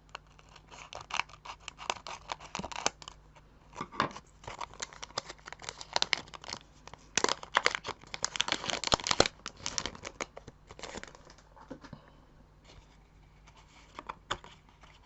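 Scissors snipping open foil Pokémon booster packs, with the foil wrappers crinkling. The snips and rustles come in clusters, busiest around the middle.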